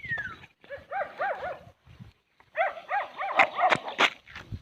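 Small puppy whining in short bursts of quick rising-and-falling yelps, with a brief falling whine at the start. Sharp clicks or taps come in among the yelps near the end.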